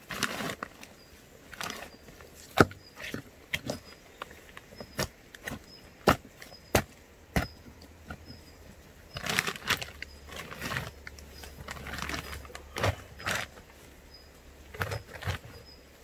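Irregular sharp knocks and clicks of rocks knocking together as stones are moved and set by hand, the loudest about two and a half seconds in. Rustling of plastic sheeting comes in bursts near the middle.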